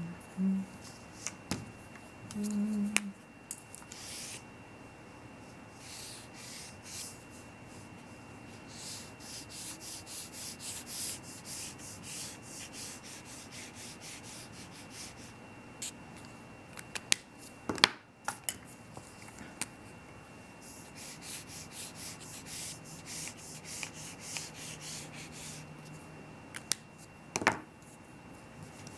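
Wet paintbrush bristles scratching across paper in quick, repeated strokes, spreading washable marker ink with water. A few sharp taps stand out, two about two-thirds of the way through and one near the end.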